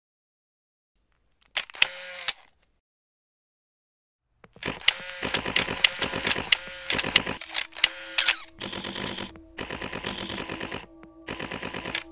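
Camera shutters clicking: one short burst about one and a half seconds in, then from about four and a half seconds many shutters firing in rapid, overlapping succession.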